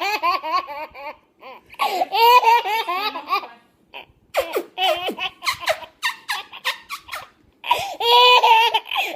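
Baby laughing in several bursts of quick, high-pitched laughs, with short breaks between them.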